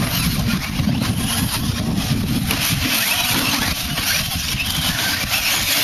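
1/10-scale short course RC trucks racing on a dirt track: a steady, dense noise of motors and tyres with a strong low rumble.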